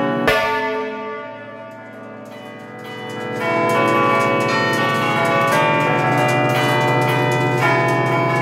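Church bells rung by hand, heard close up inside the belfry: one loud strike just after the start, the ringing fades for a couple of seconds, then a fast run of strikes on several bells of different pitch starts again about three and a half seconds in.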